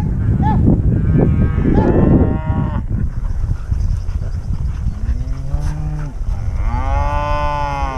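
Cattle mooing: several long, drawn-out calls, the loudest near the end, over a steady low rumble.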